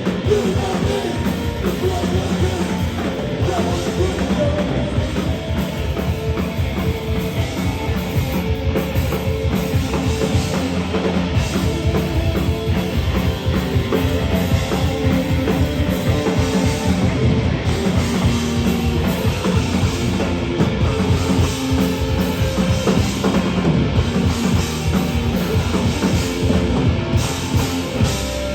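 Live heavy rock band playing an instrumental passage without vocals, with a pounding drum kit under the full band.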